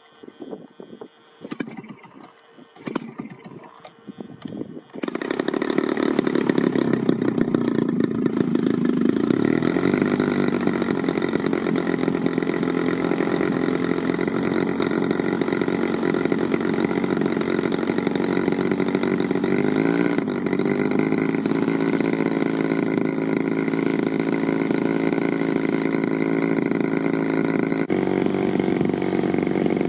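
Engine of a giant-scale RC Cessna 182 model being started by flicking the propeller by hand: a few short uneven sounds, then it catches about five seconds in and runs steadily, with brief rises in pitch around the middle.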